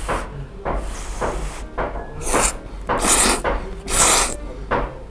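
A person slurping thick, firm Yoshida udon noodles in a series of slurps, louder and closer together in the second half.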